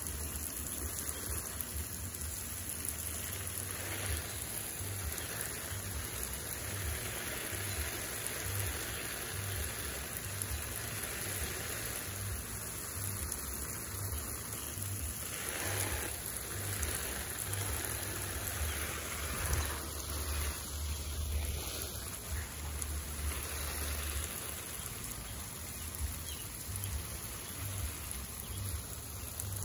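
Water spraying from a garden hose onto plant leaves and soil: a steady hiss and patter like rain.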